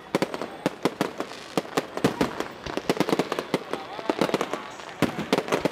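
Aerial fireworks going off in rapid, irregular sharp cracks and pops, several a second, with crowd voices under them.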